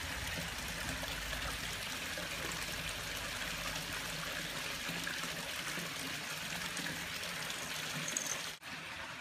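Steady trickle of running water from a swimming pool, an even splashing hiss that cuts out for an instant near the end.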